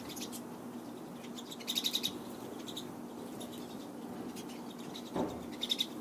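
Pine siskins twittering: a quick run of high chirps about two seconds in, and another short run near the end.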